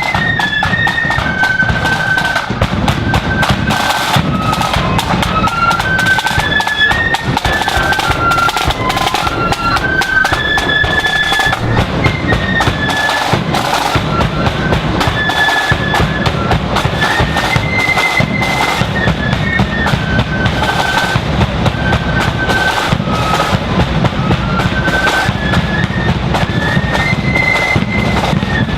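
Marching flute band playing a tune: flutes in unison carry a melody that moves in steps, over snare drums and a bass drum beat.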